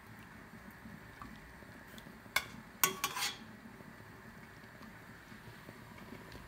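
Metal skimmer clinking twice against a stainless steel pot, about half a second apart a little over two seconds in, the second with a short ring, as boiled cauliflower florets are lifted out of the water. A faint steady hiss under it.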